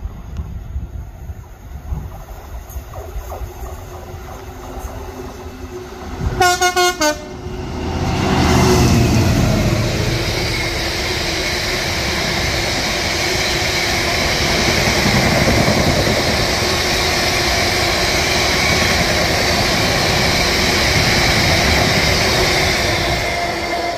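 A train sounds a short horn blast about six seconds in, then passes at speed on the main line, loud and steady for about fifteen seconds before easing near the end.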